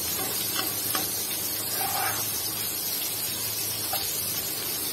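Pumpkin and shrimp bhaji sizzling in a frying pan as a metal spatula stirs it, with a steady frying hiss and a few light clicks of the spatula against the pan.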